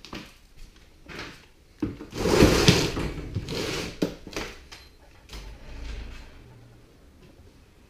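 An old wooden basement door scraping and rattling as it is pulled open, loudest for about two seconds starting near two seconds in, with a few knocks around it.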